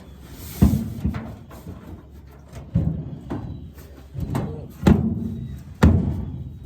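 Handling of a metal truck toolbox on the truck bed: about five heavy, hollow thumps, each with a short ringing tail, and scraping and shuffling between them as the box is lifted and set down.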